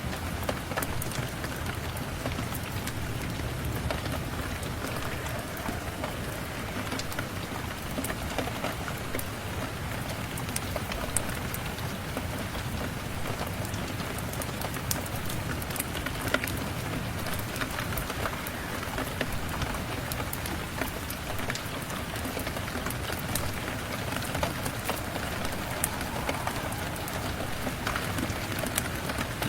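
Steady rain falling on a surface, an even rushing hiss dotted with many small sharp ticks of drops.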